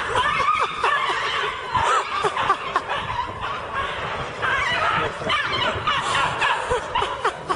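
People laughing and chuckling, a dense run of short rising and falling cries.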